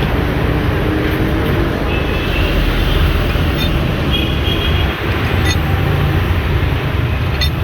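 Steady, loud rumbling background noise like road traffic, with a few short clicks.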